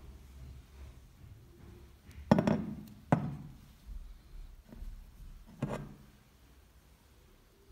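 Metal parts knocking and clinking together as they are handled: a steel sleeve or ring set against a cast housing. There are three sharp metallic knocks, two about a second apart and a third a couple of seconds later, with a few lighter taps between them.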